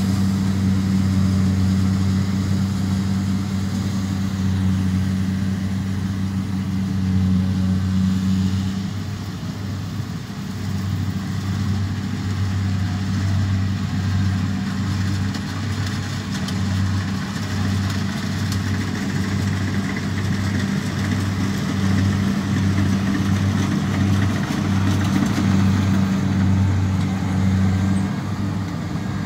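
Kubota DC-70 combine harvester's diesel engine running steadily under load as the machine cuts and threshes rice, a constant low drone with a slight dip in level around ten seconds in.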